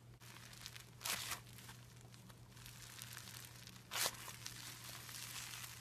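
Foam-bead slime (floam) squeezed and pulled apart by hand, crackling and crunching, with louder tearing bursts about a second in and again about four seconds in.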